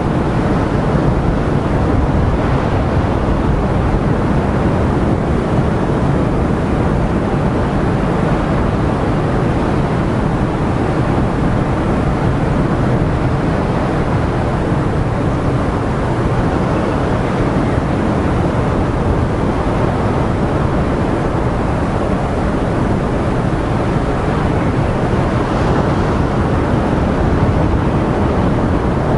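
Heavy ocean surf breaking against coastal rocks, a steady unbroken wash of noise, with wind buffeting the microphone.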